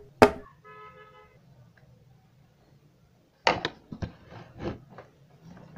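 Metal fork clinking against a dinner plate of noodles: two sharp clinks at the start and a run of clinks and scrapes from about three and a half seconds in. A brief pitched tone sounds about a second in.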